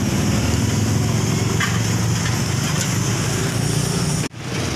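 A vehicle engine idling close by, a steady low rumble with a fast even pulse. The sound breaks off abruptly for an instant near the end, then resumes.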